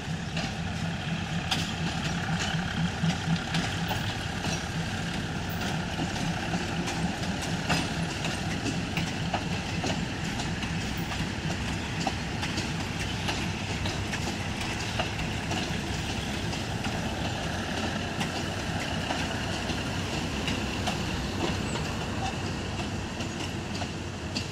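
Passenger train rolling slowly past: a steady low hum of the running train with scattered clicks of wheels over the rail joints.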